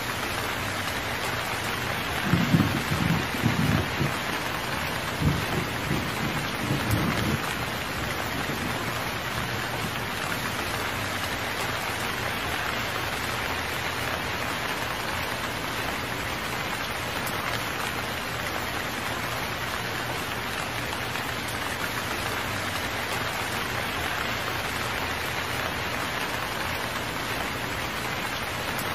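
Steady rain falling, with two low rolls of thunder about two and five seconds in.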